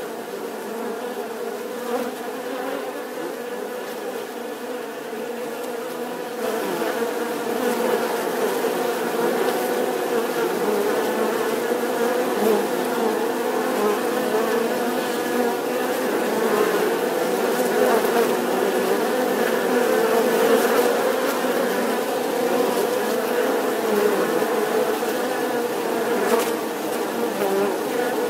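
Many honeybees buzzing, a steady droning hum that grows louder about six seconds in.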